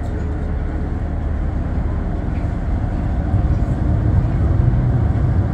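Steady low rumble of a cruise boat's engine under way, a little louder from about three seconds in.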